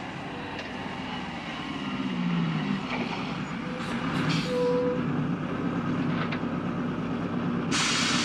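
A heavy vehicle engine rumbling, its pitch rising about two seconds in, with a loud burst of hiss near the end.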